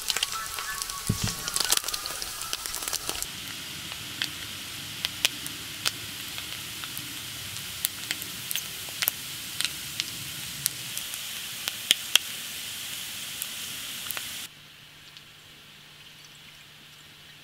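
Food frying in hot oil in a pan, a steady sizzle with frequent sharp spitting pops. It stops abruptly about 14 seconds in, leaving only a faint steady hum.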